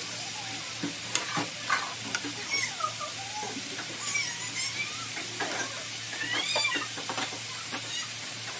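Thinly sliced beef sizzling in a hot nonstick frying pan while metal tongs turn it, with frequent clicks and scrapes of the tongs against the pan.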